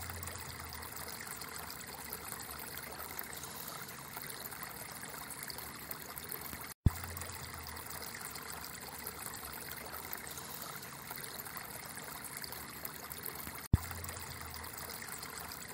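Steady noise of flowing river water, broken twice by a sharp click, about 7 and 14 seconds in.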